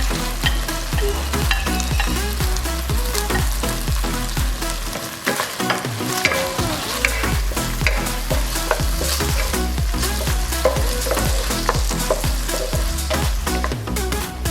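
Pork ribs sizzling as they are stir-fried in a pan, with a spatula stirring and scraping. Background music with a steady bass runs under it, the bass dropping out briefly about five seconds in.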